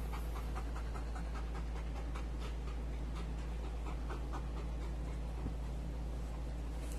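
A Rottweiler mix dog panting and licking at a person's arm, with quick wet mouth clicks several times a second.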